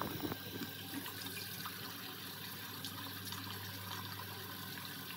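Water running steadily from a bathroom sink tap as a charcoal face mask is rinsed off.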